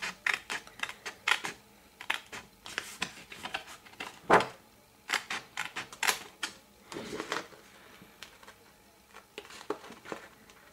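Scissors snipping through scrapbooking paper in a series of short, irregular cuts. The sharpest snap comes about four seconds in.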